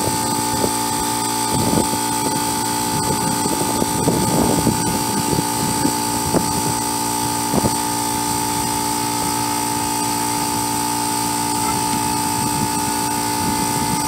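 A steady machine hum, holding several fixed pitches at an even level. Over it come a few short, light metallic knocks in the first half as a steel brake drum is handled and slid back over the rear wheel hub.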